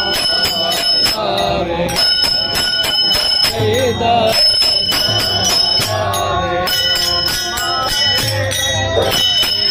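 Warkari bhajan: several pairs of bronze taal hand cymbals struck together in a steady, even rhythm, their ringing carrying over a group of men's chanted singing.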